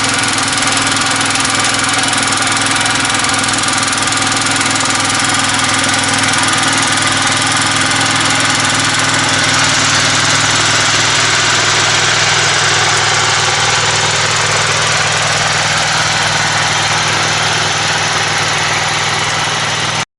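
Small gasoline engine running steadily at a constant speed, cutting off abruptly at the end.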